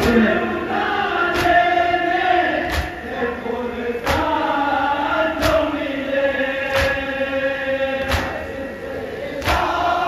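A group of men chanting a Shia noha (lament) together, with the whole group striking their chests in unison in matam, a sharp slap about every second and a half.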